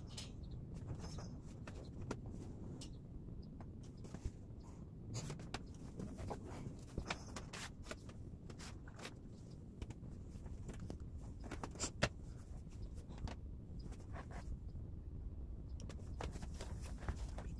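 Plastic VHS tape cases being handled and shifted on shelves: scattered light clicks and clacks with rustling close to the microphone, one sharper clack about twelve seconds in.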